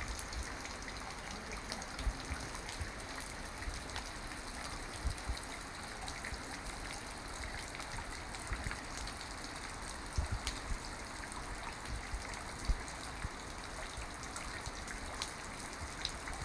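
Water dripping from a mossy rock overhang into a shallow pool below: a steady hiss of many falling drops, with a few louder single drips standing out.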